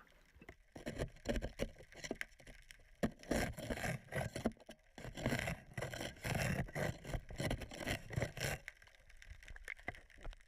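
Irregular scraping and rubbing strokes of marine growth being scraped off a boat's hull, in uneven bursts with short pauses.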